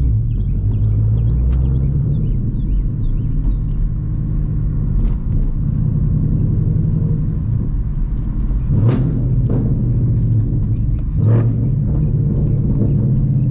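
Ford Mustang GT's 5.0 Coyote V8 running at low speed with a steady exhaust rumble, with two brief louder surges about nine and eleven seconds in.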